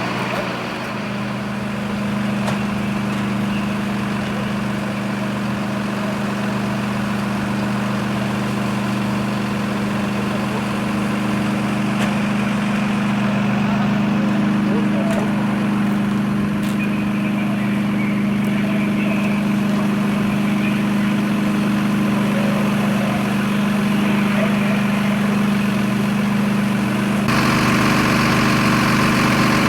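A heavy engine idling steadily with an even low hum. About two seconds before the end the sound changes suddenly and more hiss comes in.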